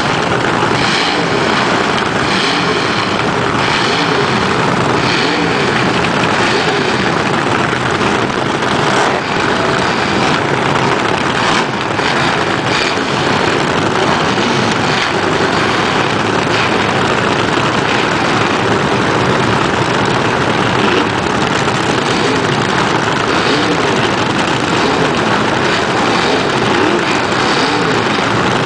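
Vintage front-engine dragster engines running loudly in place, cackling at idle on nitromethane fuel.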